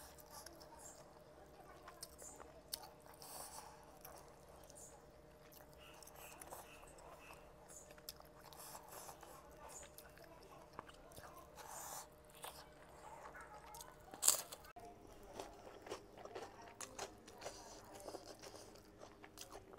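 Close-up eating sounds: soft chewing and crunching of smoked fish, with many small scattered clicks and one sharp, louder click about fourteen seconds in, over a faint steady hum.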